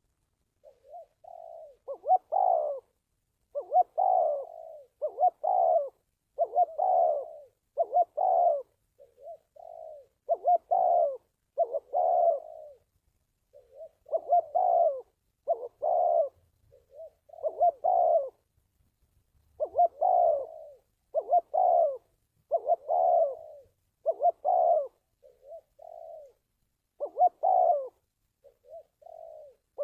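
Spotted dove cooing: repeated phrases of several low coo notes, each phrase lasting a couple of seconds, with short pauses between phrases.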